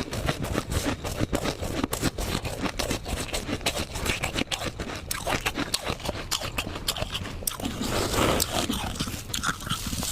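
Soft, fluffy humidifier-grown frost being scraped and crunched: a dense, irregular run of sharp crackles.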